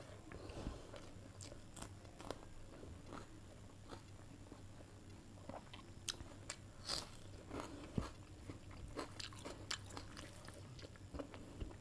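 A person eating chicken curry with rice: irregular chewing with many small, faint clicks and crunches.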